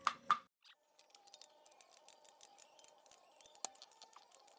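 Faint, quick metallic clicks of a wrench turning the nut on a threaded-rod case spreader, over a faint steady hum.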